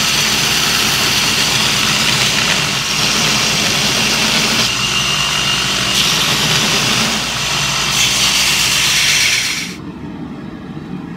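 Belt grinder running, with a steel punch pressed against the abrasive belt: a loud, steady grinding hiss over the motor's hum. It cuts off suddenly near the end, leaving quiet background.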